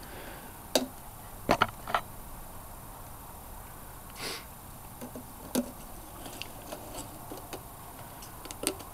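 Scattered light clicks and knocks from hands handling engine parts and a handheld camera, with a short soft hiss about four seconds in.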